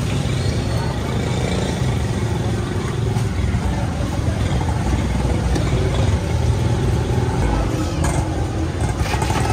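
Steady traffic noise with engines running.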